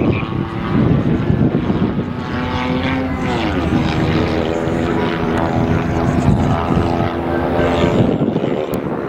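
Rally car engine running hard at speed, its note dropping in pitch about three seconds in as it passes, then holding steady.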